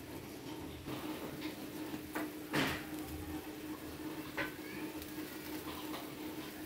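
Marinated paneer tikka on a skewer roasting over a high gas-stove flame, giving a few sharp crackles and pops, the loudest about two and a half seconds in, over a steady low hum.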